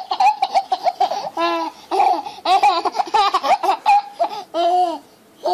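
Baby laughing in a string of short, high-pitched bursts of giggles.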